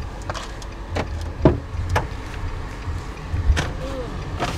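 Inside a car: a steady low engine rumble with a series of knocks and clicks, the loudest about a second and a half in, as someone climbs back into the car.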